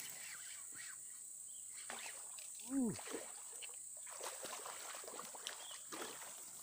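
A hooked snakehead thrashing and splashing at the surface of a small pond while it is played on a rod, with scattered splashes and small clicks. About three seconds in, a short pitched call rises and falls, and a steady high insect hiss runs underneath.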